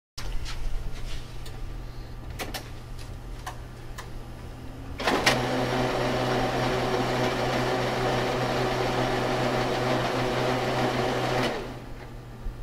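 HP LaserJet 4200/4300-series printer with a low hum and a few clicks, then its main drive and swing plate gear train start about five seconds in and run steadily with a whirring, tonal gear noise for about six seconds before stopping. The swing plate gear in these printers is known to wear and make excessive noise.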